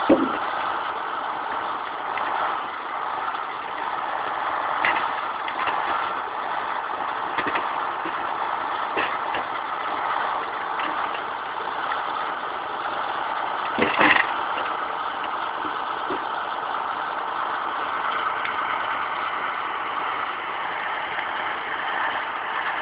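KamAZ timber truck's diesel engine running steadily, with scattered brief knocks and a louder knock about fourteen seconds in.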